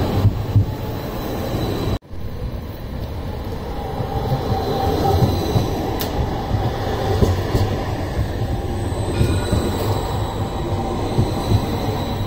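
CAF Urbos 3 low-floor trams passing close by on street track, a steady rolling rumble of wheels on rail. The sound breaks off briefly about two seconds in.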